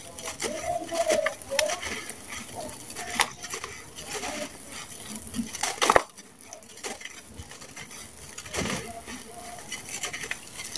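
Dry sand-cement lumps crushed and crumbled by hand, gritty grains and powder pattering down onto wet cement paste in a plastic basin, with crisp crunches and crackles throughout; the sharpest crunch comes about six seconds in.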